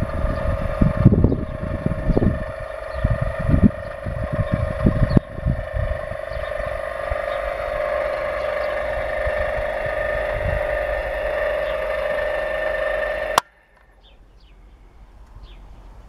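Electric drill motor of a tractor-mounted earth auger whining steadily as it bores into soil, with heavy low knocking and rumbling from the auger churning the ground in the first few seconds. The whine cuts off abruptly near the end.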